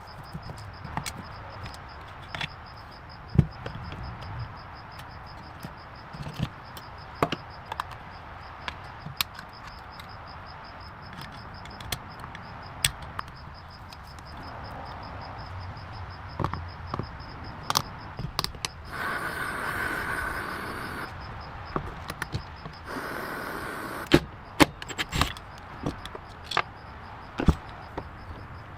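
Scattered knocks, clanks and clicks of hand tools working on a car, with two short bursts of hissing about two-thirds of the way through.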